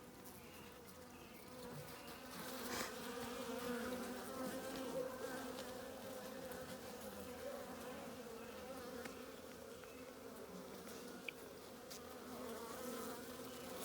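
Honeybees in an open hive buzzing steadily, a low hum with many wavering tones. There are a few faint clicks as a frame is handled.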